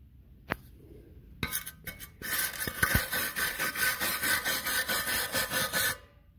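Hand-held stainless steel wire brush scrubbing a fresh aluminum weld in quick back-and-forth strokes, several a second, cleaning the bead. A few light knocks come first, then the brushing starts about two seconds in and stops sharply a little before the end.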